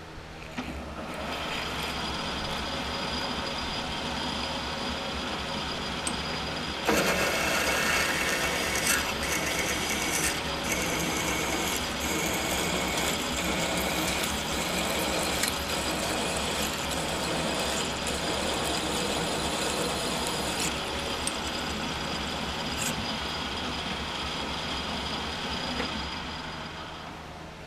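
Smithy Granite lathe starting up and running, with a large twist drill cutting into the spinning muzzle brake blank to drill it out to bore diameter. From about seven seconds in the cutting is louder and harsher; it eases off around twenty seconds, and the lathe winds down near the end.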